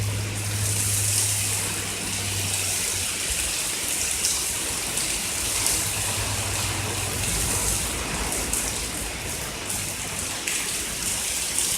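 Torrential thunderstorm rain pouring down: a dense, steady hiss of heavy rain with water sheeting off a roof faster than the gutters can carry it.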